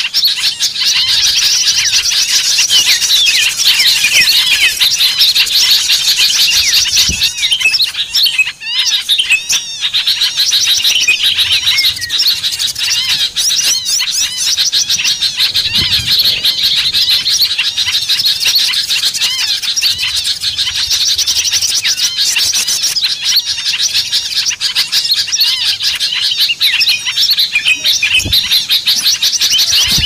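Dense, loud chorus of many small songbirds chirping and whistling over one another: a mixed bird-lure recording combining bulbuls and flycatchers. There is a brief lull about nine seconds in.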